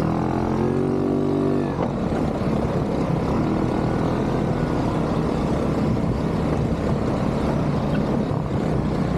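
ATV engine running at a steady pitch, with a dense low rumble underneath.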